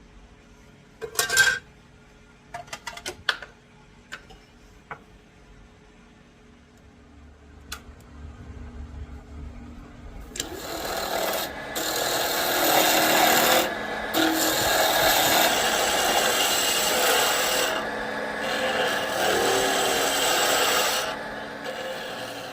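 A tool shaping a turning walnut-and-maple handle blank on a wood lathe: a loud rasping scrape that starts about ten seconds in and runs with a few short breaks. Before it come a sharp knock about a second in and a few lighter clicks.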